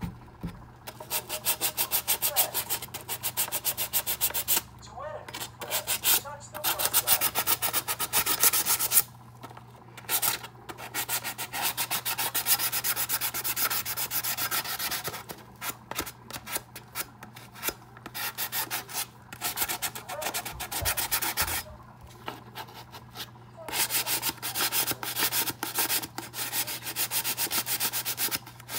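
400-grit sandpaper on a foam-backed pad, rubbed back and forth by hand over a ceramic cup's clear coat: a light scuff sanding that leaves the surface dull before the next coat. The quick scratchy strokes come in runs of several seconds with short pauses between.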